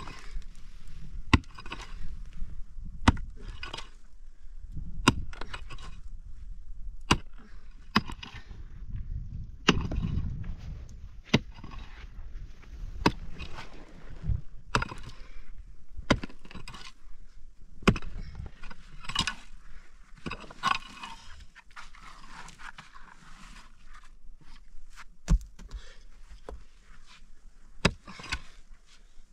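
Repeated sharp knocks, one every second or two, with scraping and rustling between them.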